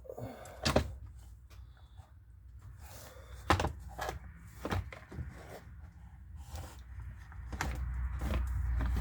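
Scattered clicks and knocks of chainsaw parts being handled while working on the oil tank, with a low rumble building near the end.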